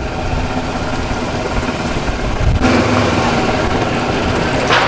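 Golf cart running as it drives along a path, a steady hum and rumble that gets louder about two and a half seconds in.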